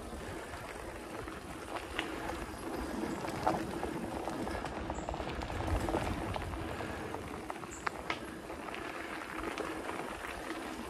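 Specialized Stumpjumper mountain bike riding fast over a packed-dirt singletrack: steady tyre rumble on the dirt, with scattered rattles and knocks as the bike jolts over the ground.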